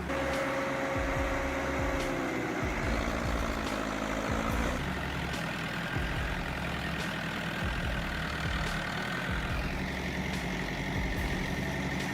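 An engine running steadily, its pitch easing down between about two and five seconds in, then holding steady.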